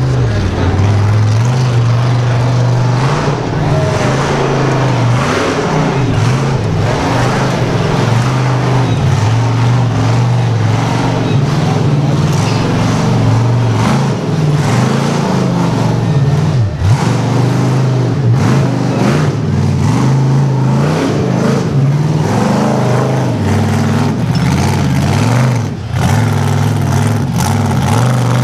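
Off-road truck engine running loud, its revs rising and falling.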